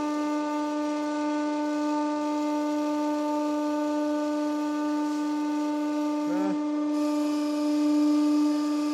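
Hydraulic pump of a 150-ton hydraulic press running with a steady pitched hum while the press table is raised, testing a freshly replaced hydraulic line for leaks. About seven seconds in a hiss joins and the sound grows louder.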